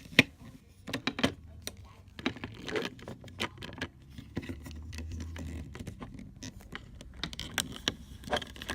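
Scissors clicking and scraping against the foil capsule on a wine bottle's neck, a run of irregular sharp clicks and crinkles, the loudest near the start. The scissors are not cutting the foil well.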